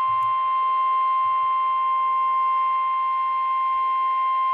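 Emergency Alert System attention tone of a broadcast monthly test: one steady, unbroken tone held at an even loudness.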